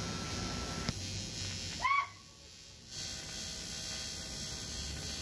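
TIG welding arc on an alloy mag wheel, giving a steady hiss with a low hum while filler is built up on a chipped rim. Just before two seconds in there is a brief louder burst with a short chirp, then the sound drops for about a second before the steady arc hiss resumes.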